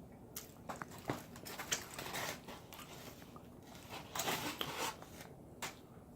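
Close-up eating sounds: biting and chewing food, with scattered crunches and wet clicks, a louder stretch of chewing about 2 s in and again about 4 s in.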